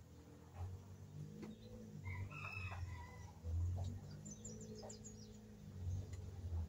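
A rooster crows once about two seconds in, a rising-then-falling call heard over bursts of low rumble.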